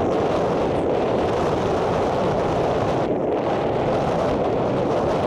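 Steady wind noise buffeting the microphone.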